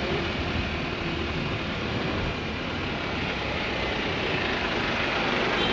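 Steady city traffic noise, mainly a double-decker bus's engine running just ahead.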